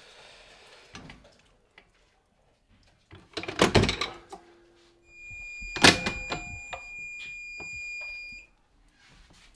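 Clamshell heat press clamped shut with a loud clunk, then its timer alarm sounds one steady, high electronic beep for about three and a half seconds, the signal that the pressing time is up, with a sharp clunk as the press is released.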